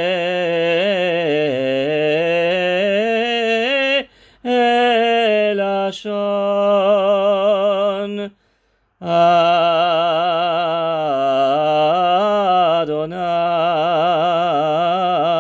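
A male hazan (cantor) singing solo and unaccompanied, a Spanish and Portuguese chant for the Rosh Hashanah additional service, with a marked vibrato on long held notes. He breaks off for a short breath about four seconds in and again for nearly a second around eight seconds in.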